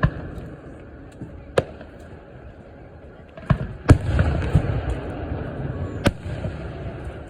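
Aerial fireworks bursting overhead: about five sharp bangs, the loudest about four seconds in, with a low rumble between them.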